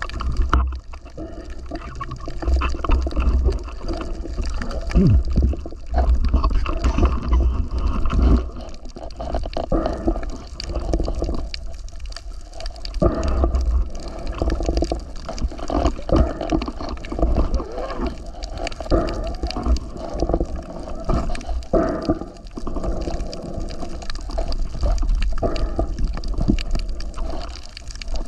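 Water sloshing and gurgling close to the microphone, with uneven swells and a steady crackle of small clicks throughout.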